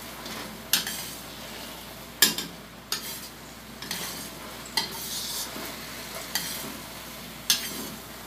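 Metal spatula stirring chicken adobo in a stainless steel wok, knocking and scraping against the pan about six times, while the dark sauce sizzles underneath.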